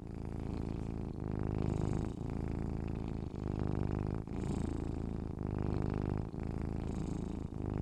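Domestic cat purring: a steady low rumble that pulses with its breathing, about once a second.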